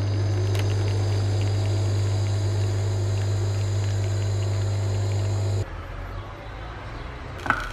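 A coffee-making appliance humming steadily with a low electric drone, then cutting off abruptly about five and a half seconds in. Quieter room noise follows, with one sharp click near the end.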